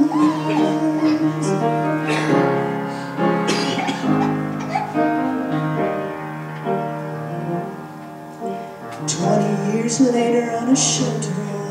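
Woman singing a gospel song over piano accompaniment, holding long notes.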